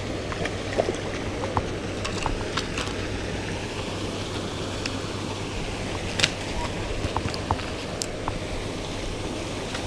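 Steady outdoor wash of wind and splashing pond water, with scattered sharp clicks and taps from handling a spinning rod and reel and a landed fish on the concrete edge; the loudest click comes about six seconds in.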